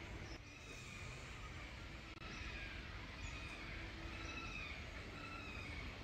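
A repeated short animal call, slightly falling in pitch, sounding about once a second over steady background noise.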